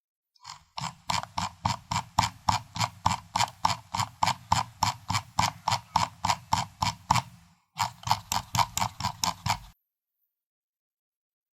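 Computer mouse scroll wheel turned notch by notch, giving a quick regular train of clicks, about four or five a second. It pauses briefly and goes on for two more seconds before stopping.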